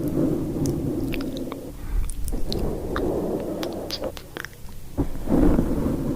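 Close-up rubbing and stroking across the microphone's surface in three long strokes, heard as a low rumbly scratching, with scattered small sharp ticks over it.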